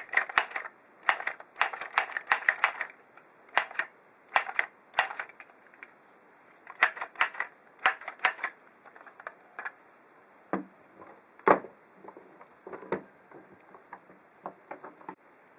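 Hard plastic clicks and snaps from a toy dinosaur being handled and worked, in quick irregular clusters, then fewer and sparser, with a couple of duller knocks about ten and eleven seconds in.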